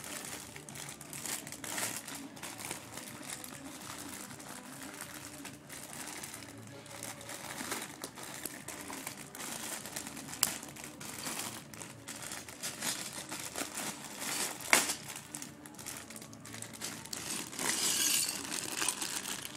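Plastic crinkling as a bag of Lego parts is handled, with scattered small clicks of plastic Lego pieces, two of them sharper, about halfway through and about three-quarters through.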